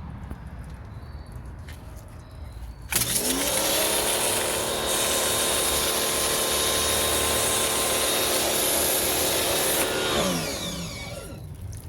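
Sun Joe electric pressure washer running: about three seconds in, the motor starts with a quickly rising whine and the water jet hisses steadily. About ten seconds in, the motor winds down with a falling whine and the spray stops.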